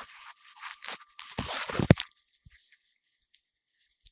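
Handling noise on a lavalier microphone: fingers and clothing rubbing and scraping against the mic capsule, giving a rustling, crunching crackle that stops about two seconds in.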